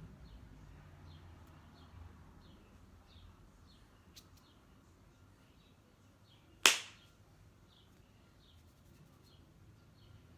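Short high chirps repeating steadily, about one every three-quarters of a second, from a bird or small animal. A single sharp crack cuts in loudly about six and a half seconds in.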